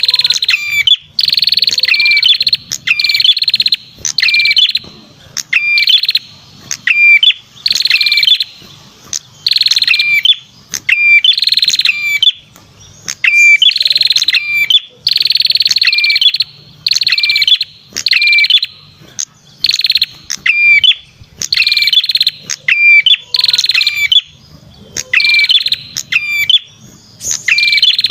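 Lure recording of a perenjak kepala merah singing: loud, high buzzy trills about half a second to a second long, repeating roughly once a second, with short sharp chirps between them.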